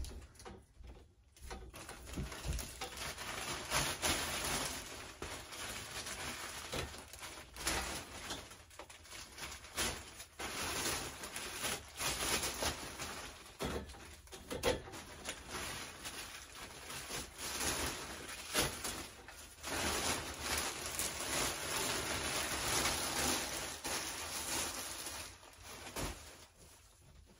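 Thin plastic wrap crinkling and rustling as it is pulled off a folded metal canopy frame, irregular crackles with a few short pauses.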